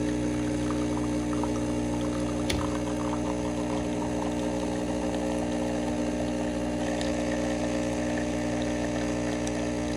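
Espresso machine's pump humming steadily as it pulls a shot, with coffee streaming from the portafilter's two spouts into a cup.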